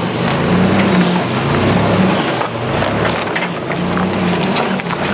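Vehicle engine running steadily under way, with tyre and road noise and scattered small clicks and knocks.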